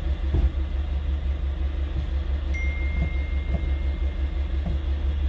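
Car engine idling with a steady low, pulsing rumble, and a few faint knocks. A thin high tone sounds for about two seconds from the middle.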